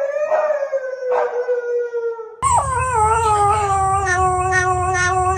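Two dogs howling one after the other. First a husky gives one long howl that slowly falls in pitch. About two and a half seconds in, it cuts to a Yorkshire terrier's wavering howl.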